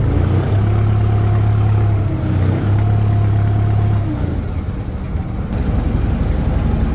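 A boat engine running steadily under way, a low droning hum that eases slightly about four seconds in.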